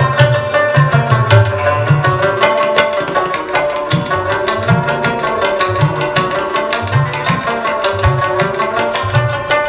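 Instrumental folk music: rapid plucked string notes over a steady pattern of deep hand-drum strokes.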